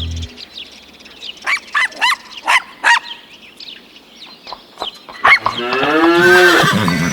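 Cartoon farm-animal sound effects: the last chord of the accordion music cuts off, a quick run of short rising bird calls follows, then a long cow moo near the end.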